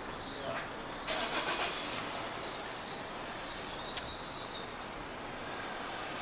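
Street ambience: a steady hum of traffic, with a bird chirping over and over above it, roughly every half second. A brief louder stretch of noise comes about a second in.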